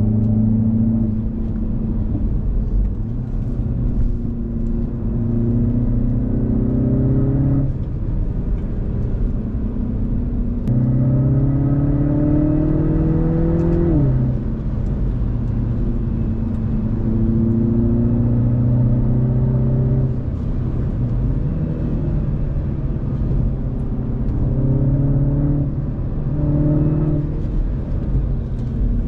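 Mini Cooper S F56's turbocharged four-cylinder engine with its stock exhaust, pulling through the gears: the engine note climbs in several pulls and drops at each shift or lift-off, most sharply about halfway through.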